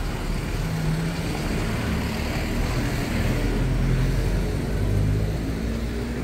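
Street traffic: a motor vehicle's engine running nearby with a low rumble, growing a little louder partway through.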